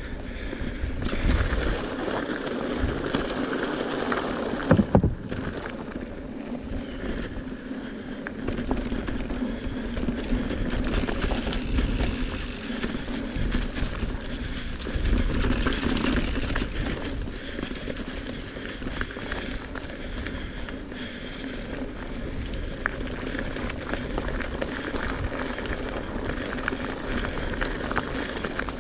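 Mountain bike (a Giant Trance) riding a dirt singletrack trail, with tyres rolling over the ground and the bike rattling over rough ground. There is one sharp knock about five seconds in, the loudest moment.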